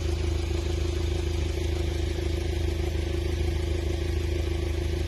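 A motor running steadily with a low hum, holding the same pitch throughout.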